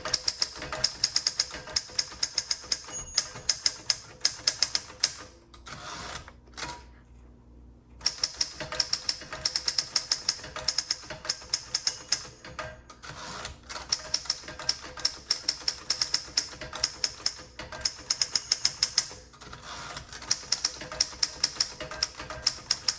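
1960 Royal Diana manual typewriter being typed on in quick runs of key strikes, several a second, with a few brief breaks; the typing action is working smoothly.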